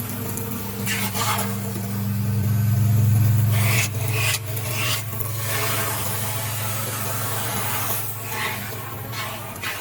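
5-axis CNC router carving foam: a steady low machine hum with repeated rasping swishes as the cutter passes through the foam, the hum swelling a couple of seconds in.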